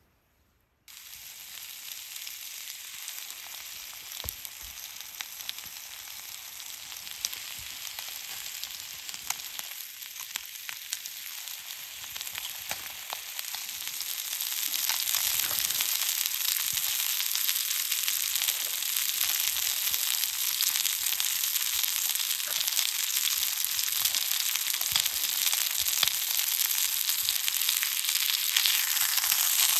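Food sizzling in a hot pan: a steady frying hiss with small pops that starts suddenly about a second in and grows louder about halfway through.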